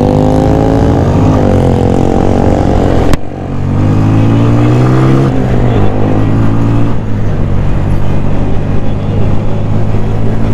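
Honda CG 125's single-cylinder four-stroke OHV engine pulling away and accelerating, its pitch rising through a gear, cut by a sudden break about three seconds in. It then rises again and settles into steady cruising under a rougher rushing noise.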